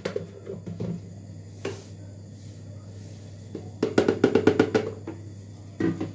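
Kitchen handling sounds: a quick run of rattling taps about four seconds in as a white plastic container is tipped and shaken over a ceramic mug, then a couple of knocks near the end as things are set down on the counter.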